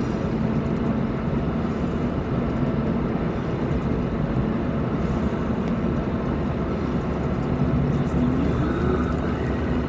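Steady road and engine noise of a car driving at speed, heard from inside the car, with a constant low engine hum and a short rising whine near the end.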